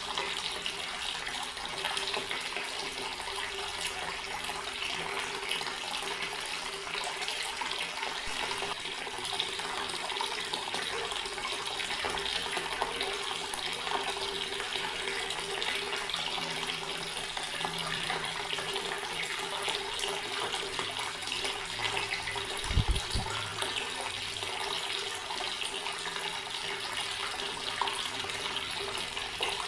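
Garden water tap running, a steady unbroken splashing flow of water. One brief low thump about three quarters of the way through.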